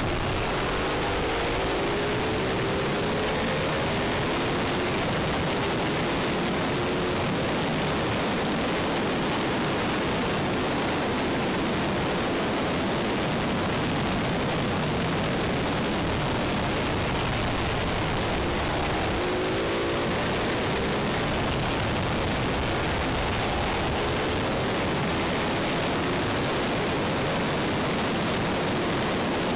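Heavy wind roar on an onboard camera at track speed, with the Ducati 848 Evo's L-twin engine faintly heard beneath it, its pitch rising under acceleration near the start and again about two-thirds of the way through.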